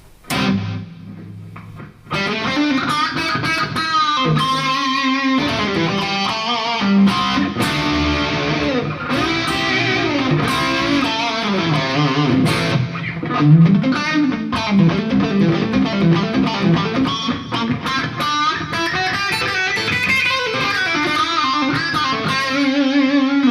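Distorted electric guitar (Ibanez Jem) through a Kemper profile of a 1959 Marshall Plexi 100-watt with the Kemper's DS distortion stomp, reverb and a short 260 ms delay of about two repeats, playing lead licks with string bends and fast runs. A single note opens it, then continuous playing starts about two seconds in and ends on a held note.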